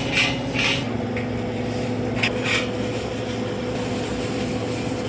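A motor hums steadily, its pitch dropping slightly about a second in. A few short hissing bursts come over it in the first three seconds.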